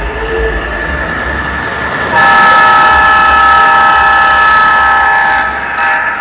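O-gauge MTH GP9 model diesel locomotive's onboard sound system sounding a multi-chime diesel horn over its running engine sound: one long blast starting about two seconds in, then a short toot near the end.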